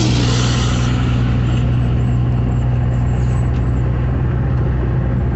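A vehicle cruising on a highway, heard from inside: a steady low engine hum under an even rush of road and wind noise, with a brief louder hiss in the first second.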